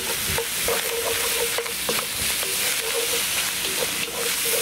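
Diced vegetables and ham cubes sizzling as they brown in a hot cast-iron Dutch oven, stirred and scraped with a wooden spoon.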